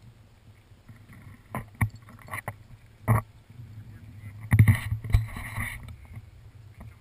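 Scattered crunches, knocks and rustles close to the microphone, from footsteps and small dogs' paws on wood-chip ground, with the loudest cluster about halfway through, over a low steady rumble.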